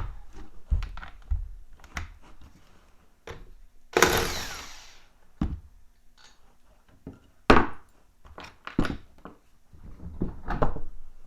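Hand tools clanking and knocking on the rear axle hub of a 1999 Honda Fourtrax 300 4x4 as it is taken apart. A harsh burst of about a second comes about four seconds in, and the loudest sharp knock a few seconds later.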